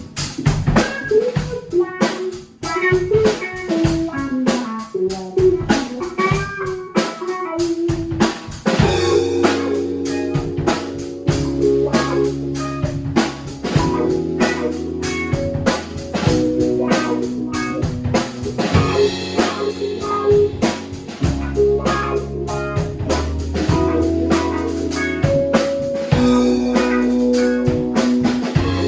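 Band music with a drum kit keeping a steady beat and guitar; a bass line comes in about nine seconds in.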